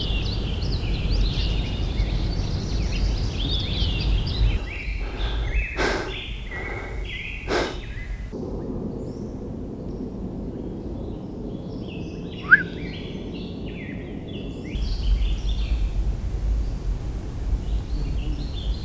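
Dawn chorus of woodland songbirds, many short chirps and trills overlapping, over a low rumble. Two sharp clicks come near the middle, and one loud rising call about two thirds of the way through.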